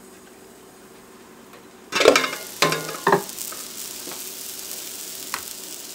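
Onion, pepper and garlic frying in oil in an electric rice cooker: a faint sizzle under the glass lid, then about two seconds in the sizzling turns suddenly louder with three sharp clanks, as the lid comes off and the pot is stirred, and it keeps sizzling steadily after that.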